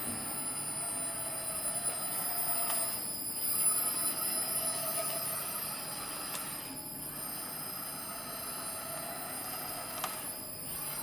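Polyurethane coating machine running under test: a steady mechanical whine from its motors, dipping briefly about every three and a half seconds.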